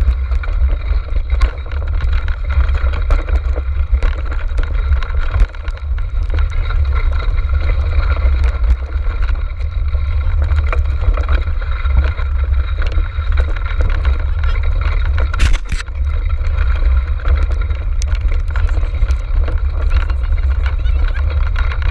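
Dog-racing cart rolling over a rough trail: continuous rattling and knocking, with heavy wind rumble on the microphone.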